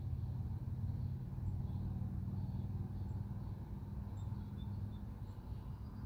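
A steady low mechanical rumble with a hum, with a few faint, short high bird chirps over it.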